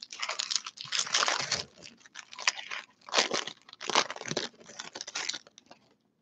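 Clear cellophane wrapper of a baseball card pack crinkling and tearing as it is pulled open by hand, in a run of irregular crackles that stops about a second before the end.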